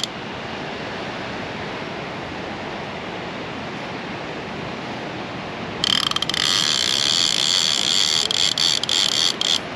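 A steady rushing background noise, then about six seconds in a fishing reel's clicker ratchet starts up, a loud, rapid, high-pitched metallic clicking buzz that lasts about three and a half seconds.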